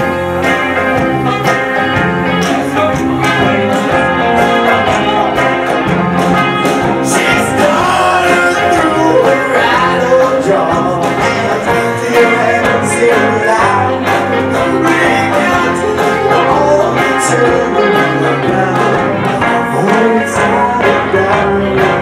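Live band playing a folk-rock number: electric guitar, banjo, saxophone and drums together, loud and continuous.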